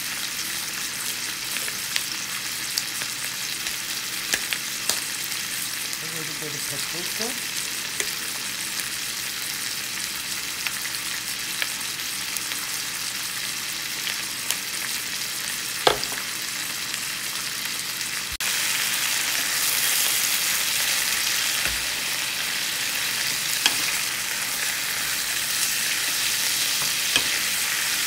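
Sliced potatoes, onions and bell peppers sizzling in oil in a frying pan, with scattered sharp pops and crackles. The sizzle gets louder about two-thirds of the way through.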